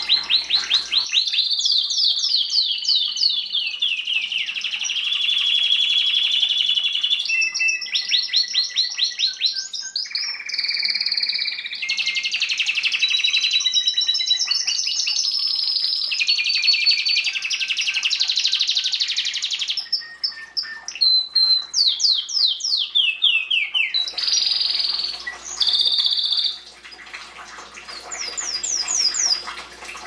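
Domestic canary singing a long song of rapid trills and rolling, repeated high notes, with short breaks about 20 and 26 seconds in.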